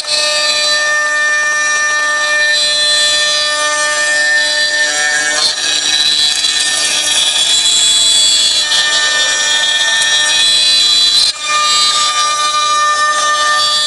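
A 4-axis CNC router's spindle running and its cutter carving a gourd turning in the rotary chuck: a steady high whine of several held tones over a hiss of cutting. The tones shift in pitch about five seconds in, and the sound dips briefly near the end.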